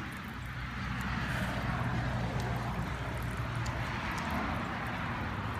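Old bulldozer's engine running steadily at idle, a low even hum.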